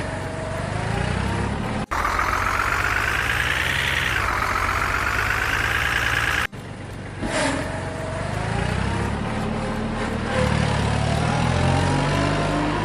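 Heavy vehicle engine running, revving up with a climbing pitch for a couple of seconds before dropping back. The sound breaks off abruptly twice, as if in separate edited pieces.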